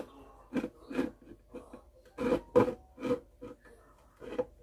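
Glass spice jars with bamboo lids being picked up, turned round and set back down on a shelf, giving a series of light knocks and clinks, several of them close together about halfway through.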